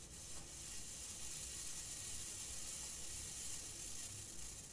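RONXS rechargeable electric arc lighter with its arc running: a faint, steady high-pitched hiss, normal for the lighter in use.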